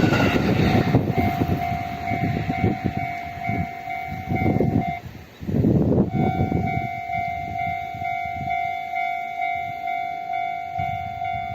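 A train passing over a Japanese level crossing, its rumble fading in waves, while the crossing's electronic warning bell rings. About five seconds in the bell stops for a second, then starts again and rings on steadily at just under two strikes a second.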